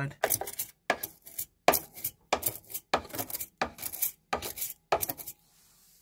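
A cleaning brush scraping and poking along the metal fins of a heat pump tumble dryer's heat exchanger in quick, scratchy strokes, about two to three a second, clearing out lint and debris. The strokes stop a little after five seconds in.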